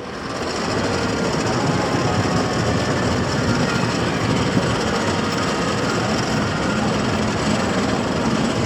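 Riddler's Revenge, a steel stand-up roller coaster, its train running along the track with a loud, steady noise that builds about half a second in.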